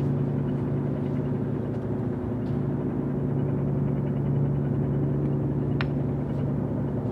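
A steady, low engine drone made of several held tones that never changes in pitch or level, with one sharp click near the end.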